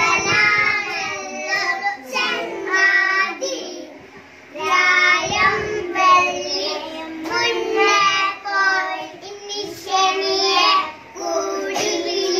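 Young children singing a song together into a microphone, in phrases with a short break about four and a half seconds in.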